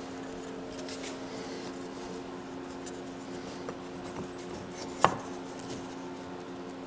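Glue-coated wooden end-grain blocks handled and rubbed together, then one sharp wooden knock about five seconds in as a block is set down against another on the pipe clamps. A steady low hum runs underneath.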